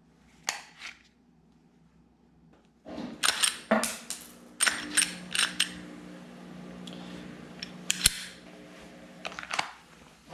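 A series of sharp clicks and snaps from hard objects being handled, over a steady low hum that starts about three seconds in, with one sharper click about eight seconds in.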